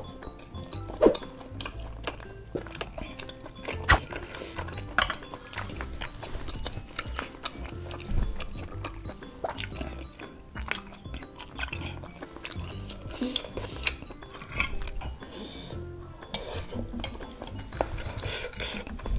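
Metal spoon and fork clinking and scraping against a ceramic bowl of tapioca meatballs in broth, with chewing between the clinks, over background music.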